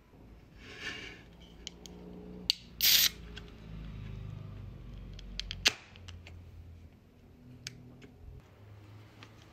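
Aluminium drink can opened by its pull tab: a sharp click, then a short fizzing hiss of escaping gas, about two and a half seconds in. A few seconds later comes another sharp click as the can is handled.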